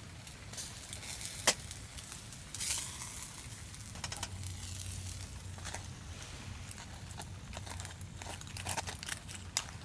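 Campfire crackling, with sharp pops scattered irregularly throughout and a brief rustle about three seconds in.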